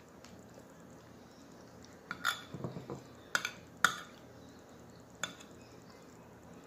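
Metal spoon clinking and scraping on a plate: a handful of sharp clinks from about two seconds in, the loudest near four seconds, and one last clink past five seconds.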